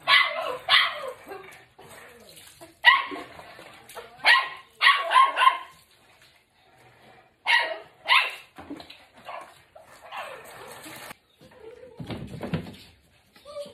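A dog giving a dozen or so short, sharp barks and yelps, some in quick runs of two or three. A low rumbling handling noise comes near the end.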